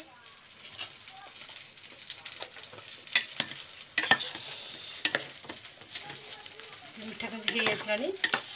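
Sweet khichdi sizzling in a metal pot over a medium gas flame while a metal spoon stirs and scrapes through the rice, with a few sharp clinks of the spoon against the pot.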